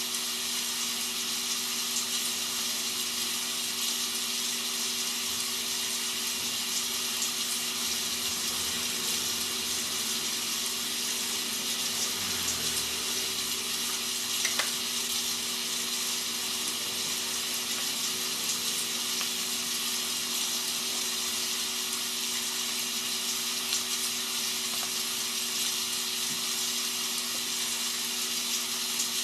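Rain sound effect used as white noise: a steady, even hiss of falling rain, over a low steady hum.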